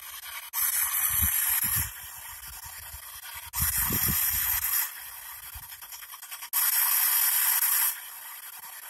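P-SB7 spirit box sweeping through radio static: three loud bursts of white-noise hiss, each over a second long and about three seconds apart, with softer hiss between them.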